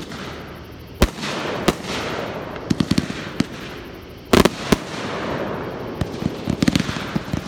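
Fireworks launching and bursting: a series of sharp bangs at uneven intervals, loudest as a double bang about halfway through, with quick runs of smaller pops in between.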